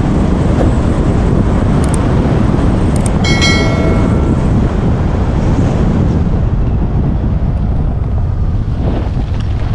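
Wind rushing over the microphone of a moving motorcycle, a loud steady rumble. About three seconds in there are a couple of clicks and a short ringing chime, the sound effect of a subscribe-button animation.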